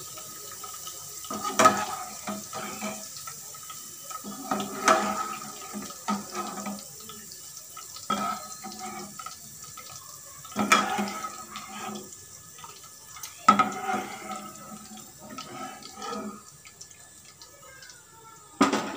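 Deep-fried corn kernels draining in a wire spider strainer over a kadhai of hot oil: oil trickling and dripping back into the pan. Sharp knocks come every second or two as the metal strainer and slotted spoon tap against the pan.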